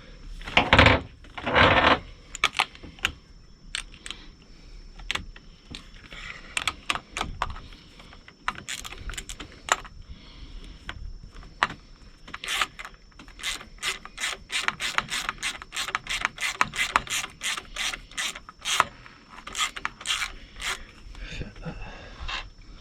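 A ratcheting mechanism clicking: a couple of louder rattling knocks at the start, then scattered clicks that settle after about halfway into a quick, even run of two or three clicks a second.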